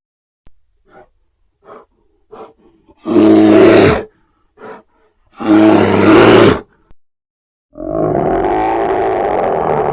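Brown bear vocalizing: a few faint short grunts, then two loud roars about two seconds apart, each lasting about a second. A long, steady growl starts near the end.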